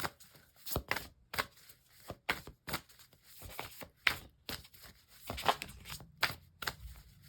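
Tarot cards being shuffled and handled: a run of irregular short taps and rustles.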